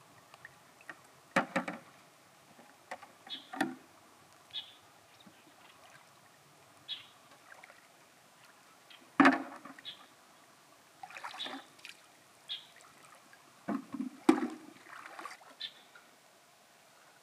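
Irregular splashes and sloshing of shallow river water as someone wades and reaches into it by hand, feeling along the bed for mussels. The splashes come in scattered bursts, the loudest about nine seconds in and a cluster around fourteen seconds.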